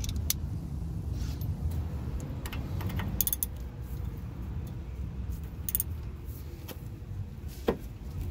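Socket and ratchet clinking against the outer tie rod end nut as they are fitted and pulled on a tight nut: a few sharp metallic clicks at irregular moments over a steady low rumble.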